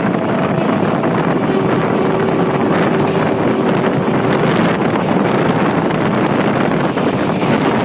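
Passenger train running at speed, heard from on board: a steady loud rumble and rush of air, with wind buffeting the microphone. A faint steady whine sounds for a few seconds near the start.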